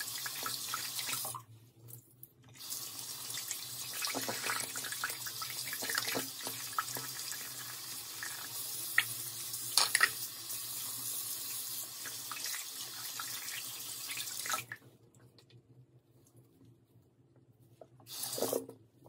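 Tap water running into a sink as a makeup brush is rinsed under it, with scattered splashes and drips. The flow breaks off briefly about a second and a half in and stops about fifteen seconds in.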